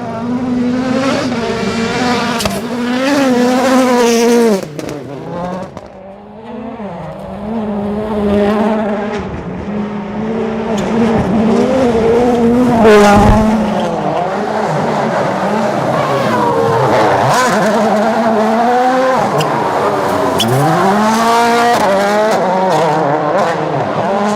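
Rally cars at full attack: the engines rev hard, and the pitch climbs and drops again and again through gear changes and lifts. Several cars go by in turn. There is a sharp crack a little after halfway.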